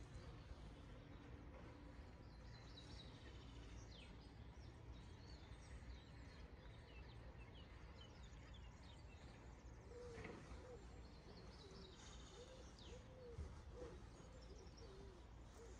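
Faint outdoor ambience: a steady low rumble with small birds chirping now and then. About ten seconds in, a run of short, lower, arched calls joins in.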